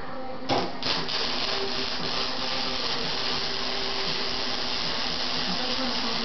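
Clark flux-core wire-feed welder striking an arc about half a second in, with a sharp crack, then sizzling steadily as it runs a bead on the cracked backhoe bucket.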